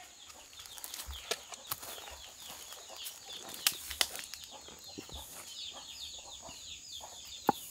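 Birds chirping: many short, falling chirps in quick succession, with a few sharp clicks among them.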